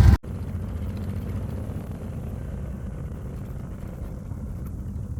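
Music cuts off just after the start, giving way to the steady low rumble of a motor vehicle on the move.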